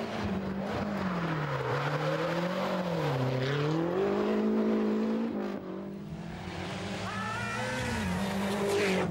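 Rally car engines revving hard, the pitch climbing and dropping repeatedly through gear changes and lifts into corners. The sound dips and breaks briefly about five and a half seconds in, then another engine climbs in pitch.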